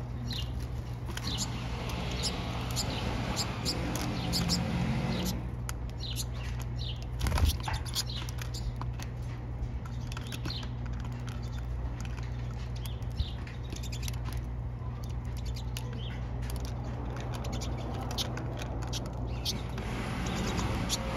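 A flock of pine siskins calling, with many short, high chirps and twitters scattered throughout over a steady low hum. There is one brief low thump about seven seconds in.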